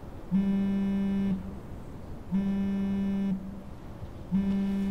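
Mobile phone signalling an incoming call with a low buzz, about a second on and a second off, three times, the last still sounding at the end.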